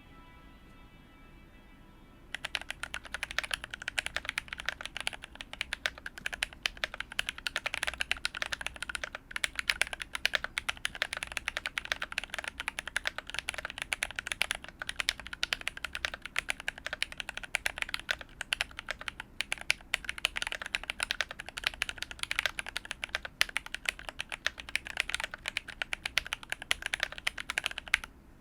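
Fast, continuous typing on a mechanical keyboard, a steady stream of key clacks, starting about two seconds in after a quiet moment.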